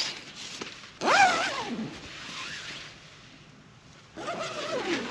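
Tent door zipper being pulled closed in two long strokes, one about a second in and another near the end, each a rasp whose pitch wavers up and down with the pull.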